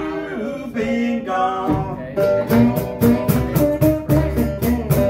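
Small acoustic band playing live: strummed acoustic guitar and upright bass, with a sung line over the first second or so, then an instrumental stretch driven by a steady cajon beat.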